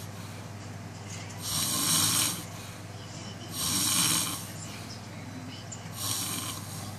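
Snoring: three hissy snoring breaths, each under a second long and roughly two seconds apart, over a steady low hum.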